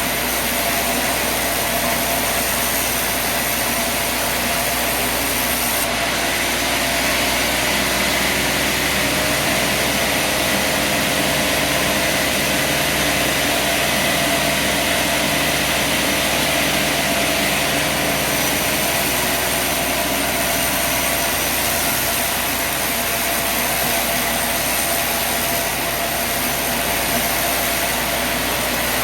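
Sawmill running, its engine driving the band blade through a poplar log. The sound is steady and loud, and the engine note drops partway through, holds lower for a stretch, then comes back up.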